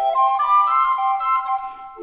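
Two Yamaha YRA-314BIII alto recorders playing a duet in fast running sixteenth-note figures, the two parts moving together in quick repeated patterns; the playing dips briefly near the end.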